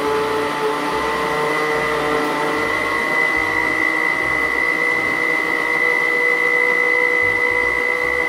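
Electric blender running steadily, puréeing carrots and apple with water. Its motor whine rises a little in pitch over the first few seconds, then holds steady.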